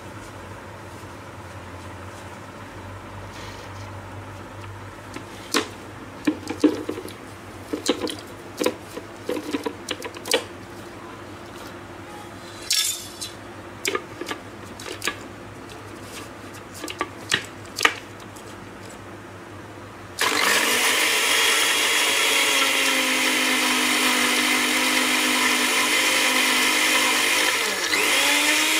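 Plastic blender jar and lid knocking and clicking as they are fitted onto an electric countertop blender. About two-thirds of the way in, the blender motor starts and runs loud and steady with a high whine, blending a liquid mix of carrot, egg and milk. Near the end it dips briefly and the pitch rises again as the switch is turned.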